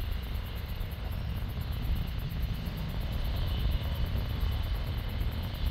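Airbus A340-300's four CFM56 jet engines running, a steady deep rumble with a faint high whine above it.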